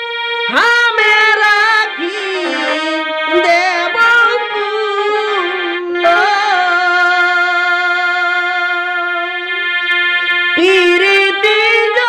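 Jhumur folk music: one melody of long held notes, with a quick upward swoop about half a second in and more swoops near the end.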